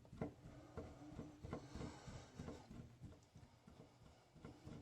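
Faint, irregular small clicks and scrapes of a screwdriver backing out a Phillips screw from a shower valve's trim.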